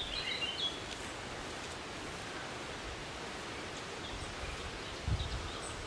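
Outdoor ambience: a steady rushing noise, with a few short bird chirps in the first second and fainter ones later.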